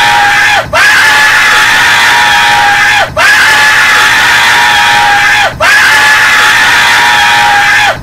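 A cartoon character's looped crying scream: one loud wail held on a steady pitch, repeating about every two and a half seconds with a short break between repeats, three times over.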